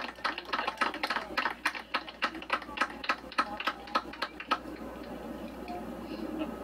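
A small group of people clapping, quick sharp claps about three or four a second, that stop about four and a half seconds in, leaving faint murmuring.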